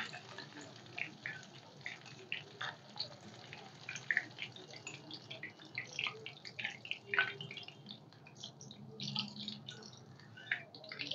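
Hot oil sizzling with irregular crackles and pops around masala-coated fish pieces deep-frying in a kadai.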